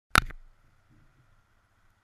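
A single sharp knock about a fifth of a second in, followed by a faint low rumble.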